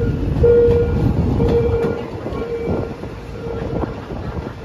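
Passenger train running on the rails, with wheel clicks and rumble. A steady tone sounds in short repeats about once a second and grows fainter.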